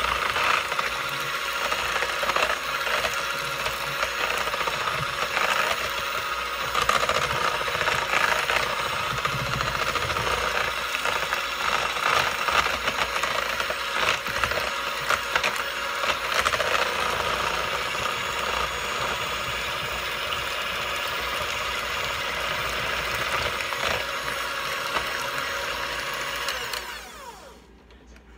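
Electric mixer running steadily, its beaters whirring and clattering in a bowl as they beat a thick sweetened-condensed-milk and lemon pie filling. Near the end it is switched off and the motor winds down with a falling whine.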